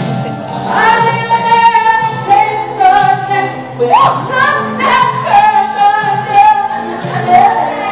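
A girl singing solo with music behind her. She holds long, wavering notes and slides sharply up in pitch about four seconds in.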